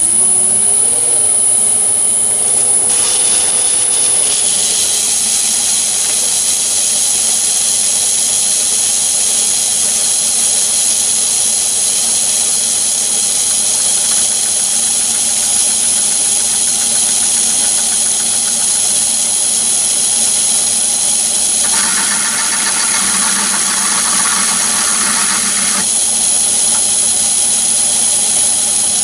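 Myford ML7 lathe running steadily while a carbide-insert boring bar cuts inside the bore of a steel barrel weight, with a steady high whine over the machine hum. A rougher cutting sound joins for about four seconds about three-quarters of the way through.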